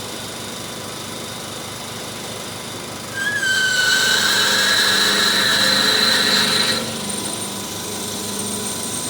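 Haas GT-10 CNC lathe drilling 303 stainless steel bar dry, without coolant. A steady machine hum, then about three seconds in the drill bites and a loud high-pitched whine rings for about three and a half seconds before dropping back to the hum.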